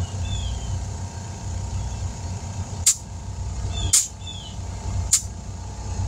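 Motorcycle tire being filled through a dial-gauge air inflator on its valve stem: a steady low hum underneath and three short sharp hisses of air about a second apart in the second half.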